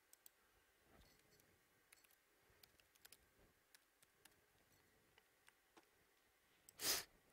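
Faint scattered clicks of a computer keyboard and mouse being worked, with one short, loud burst of noise just before seven seconds in.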